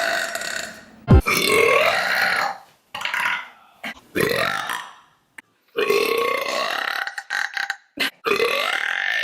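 A woman burping, a run of long, drawn-out belches one after another with short gaps, about five or six in all. A sharp thump about a second in is the loudest sound.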